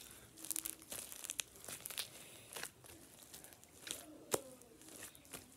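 Blue slime packed with white foam beads being squished and stretched in the hands, giving an irregular crackling and popping of the beads, with one sharper click a little over four seconds in.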